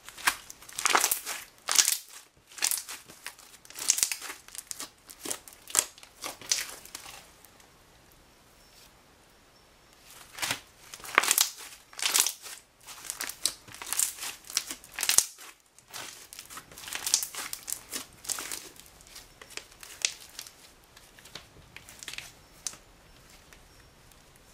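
Hands kneading and squeezing thick slime, air bubbles in it popping in runs of short, sharp squishes. There is a lull of about two seconds about a third of the way through.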